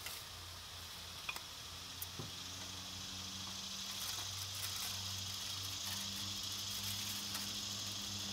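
Lit gas grill giving a steady hiss and faint sizzle, with a low electric hum of the rotisserie motor turning the spit. A few light clicks come in the first couple of seconds.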